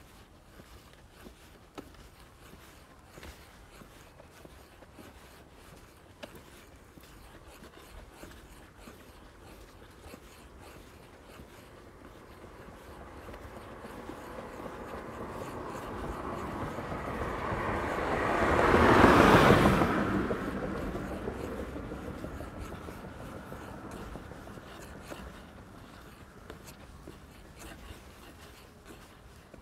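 A motor vehicle passing close by: it swells slowly, is loudest about two-thirds of the way in, then fades away.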